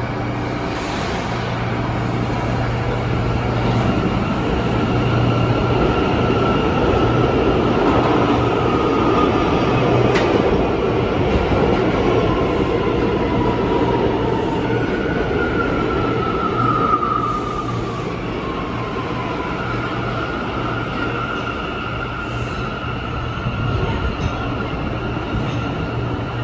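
R179 subway train running on the rails: a steady rumble with a low hum, and high whining tones that slide up and down in pitch, loudest between about 15 and 18 seconds in.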